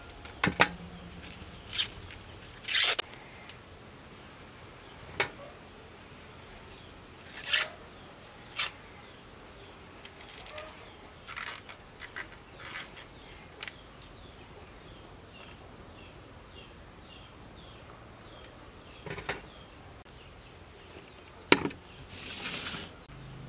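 Fresh baby corn being husked by hand: irregular rustling tears of the green husks and sharp clicks, with a longer rustle near the end.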